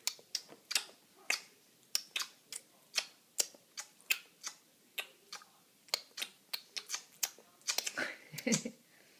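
A run of sharp, irregular clicks, two or three a second, with a brief lower-pitched sound about eight seconds in.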